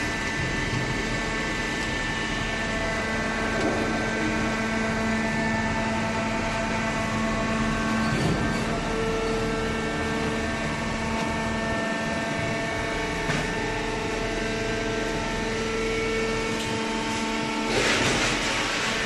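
Fully automatic horizontal cardboard baler running, a steady machine hum with several steady whining tones from its hydraulic power unit. A short rush of noise comes near the end.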